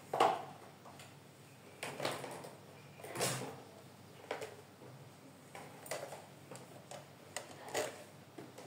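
Scattered light knocks and rustles, about eight in all and spaced irregularly, of a pair of espadrille shoes being picked up and taken away by hand.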